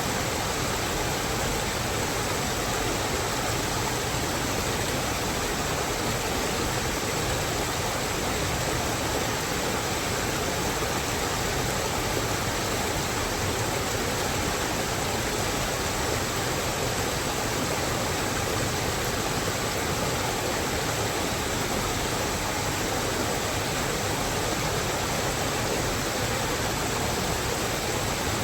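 Steady rain falling in a mountain forest: an even, unbroken hiss with no single drops or other events standing out.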